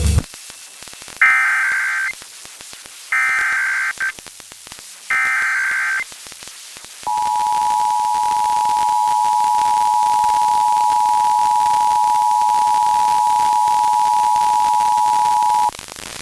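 Emergency Alert System SAME header: three roughly one-second bursts of digital data tones, a second apart, followed by the EAS two-tone attention signal, held steady for about eight and a half seconds and cutting off sharply. Together they mark the start of an EAS alert, here a required test.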